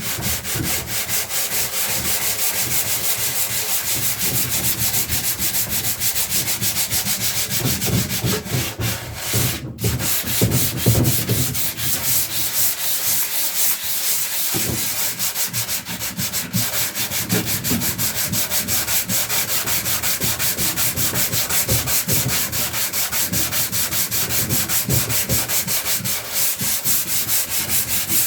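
Sandpaper sanding the wood of a chest of drawers, a steady, fast-pulsing scratchy rasp with a brief break about ten seconds in.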